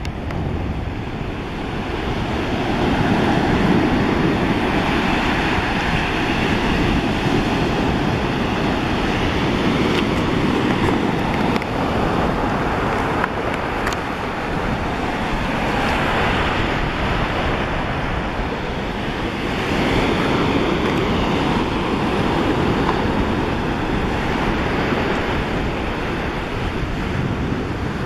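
Sea surf washing in and breaking around rocks on a beach, a continuous rush that swells and eases several times, with wind buffeting the microphone.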